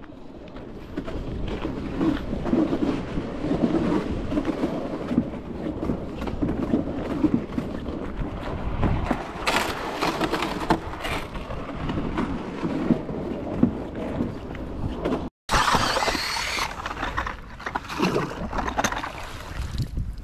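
A gear sled sliding and scraping over rough river ice, with crunching footsteps. After a break about 15 s in, there is a louder stretch of crunching and scraping of ice.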